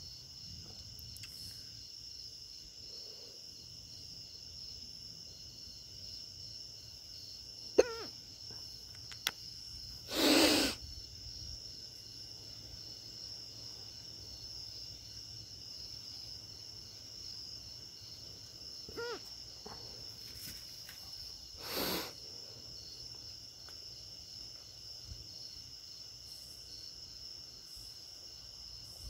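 Night insects, crickets, chirring steadily in a high, even drone. Two short loud bursts of noise break in about ten and twenty-two seconds in, and there is a sharp click just before the first.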